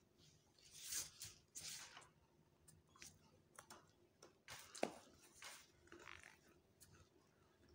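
People chewing chocolate with their mouths closed: faint, scattered chewing and mouth sounds with short pauses between them.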